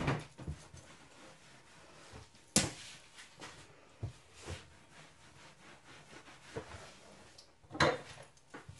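Kitchen worktop handling: a few sharp knocks, the loudest about two and a half seconds in and another near the end, between the soft rub of a cloth wiping the counter.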